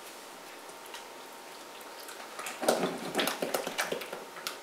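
A utensil stirring thick peanut dressing in a ceramic bowl, scraping and clinking against its sides in quick, irregular strokes that start about halfway through.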